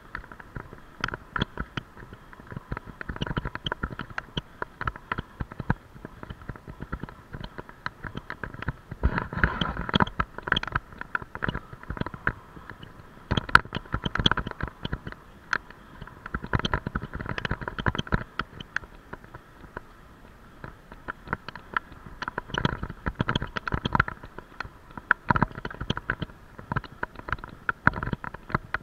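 Dense, irregular clicking and knocking, like a camera and its mount rattling with the jolts of moving along a rough road.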